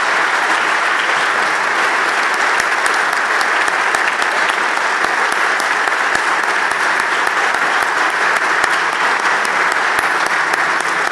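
A large crowd applauding steadily in a standing ovation, many hands clapping at once into a dense, even patter.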